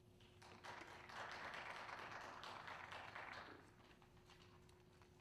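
Sheet music rustling as pages are shuffled and handed between players, with light taps mixed in, for about three seconds.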